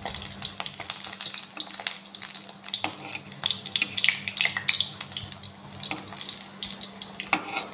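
Slices of steamed taro-leaf (arbi patta) rolls sizzling and crackling in hot oil in an aluminium kadhai. A steel spatula scrapes the pan as it turns the pieces over, once they have browned on one side.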